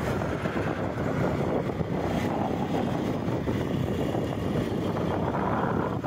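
Motorcycle riding at a steady speed: the engine running with wind rushing over the microphone, an even rumble without a break.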